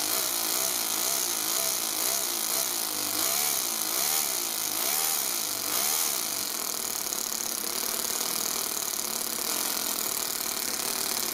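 Toyan FS-S100 single-cylinder overhead-cam four-stroke model engine running in an RC truck. Its pitch rises and falls over and over for about the first six seconds as the throttle is worked, then it settles to a steady run.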